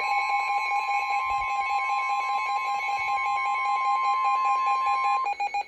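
Weather radio warning alarm tone: a single steady, piercing tone that cuts off about five seconds in, over a second, lower steady tone. It is the alert signal that comes before a spoken flash flood warning.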